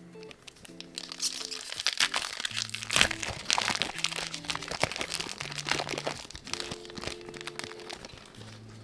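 Foil booster pack wrapper crinkling and crackling as a Pokémon card pack is handled and torn open, loudest about three seconds in. Soft background music plays throughout.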